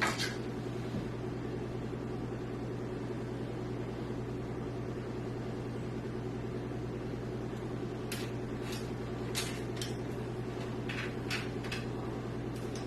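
Steady low electrical hum, with a few faint clicks and rustles of front-panel cables and connectors being handled from about eight seconds in.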